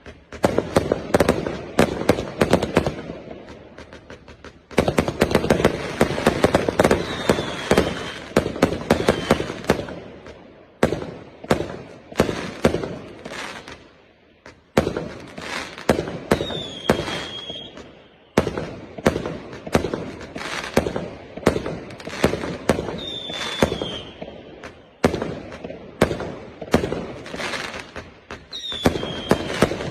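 A 399-shot, 0.8-inch fireworks cake firing: rapid volleys of sharp cracks, many per second, broken by short lulls every few seconds. A few brief high falling whistles sound among the shots.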